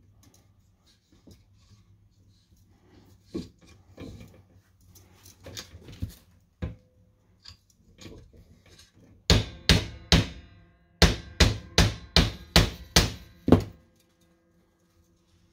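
Claw hammer tapping on a wooden beehive super frame during wiring: about ten sharp strikes in two runs, three then seven after a short pause, each with a brief metallic ring.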